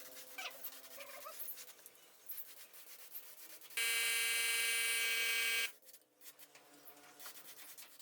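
A loud, steady electric buzzing tone about two seconds long that switches on and off abruptly, midway through, with faint clicks and tapping before and after it.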